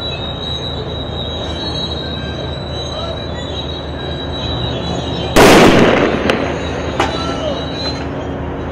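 T-72 tank's engine and tracks running steadily with a high squeal. About five seconds in comes a single very loud blast that dies away over about a second, followed by two smaller sharp cracks.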